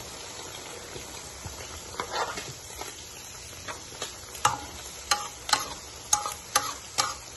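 Shredded cabbage and carrots frying in a large pan with a low, steady sizzle. From about halfway, a cooking utensil stirs them, knocking and scraping against the pan about twice a second.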